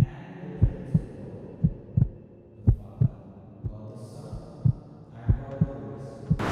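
Heartbeat sound effect: paired low thumps, lub-dub, repeating about once a second over a faint low hum.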